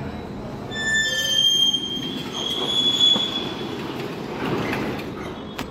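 Overhead travelling crane moving along its runway. Its steel wheels squeal on the rails with a high, steady screech that starts about a second in and lasts a couple of seconds, over a running rumble.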